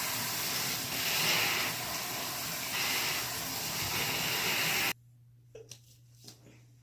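A loud, steady rushing hiss that cuts off abruptly about five seconds in, leaving a faint low hum and a few soft clicks.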